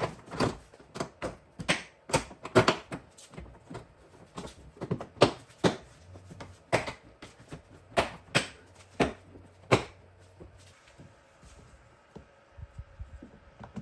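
Hard plastic trim pieces being handled and pressed into place on a car's tailgate: a string of irregular sharp clicks and knocks that stops about ten seconds in.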